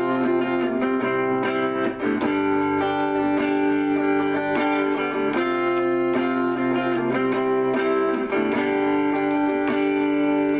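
Electric guitar on a clean amp tone playing slow chords, picked and left to ring, the chord changing about every second or two.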